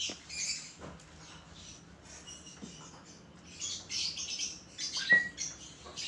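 Rosy-faced lovebird giving short, high-pitched chirps, with a few light taps and a sharper squeak about five seconds in.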